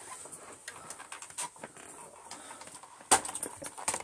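Handling noise: faint rustles and small clicks, then a louder clatter of knocks and clicks about three seconds in, as equipment is moved and repositioned.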